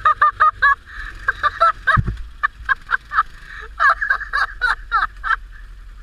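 A person laughing hard in rapid bursts of high-pitched cackles, in two long runs with a short break between them, and a dull thump about two seconds in.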